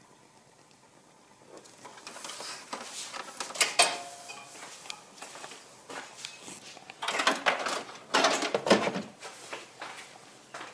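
Irregular clicks, knocks and rustling of objects being handled, starting about a second and a half in and loudest about halfway through and again near the end.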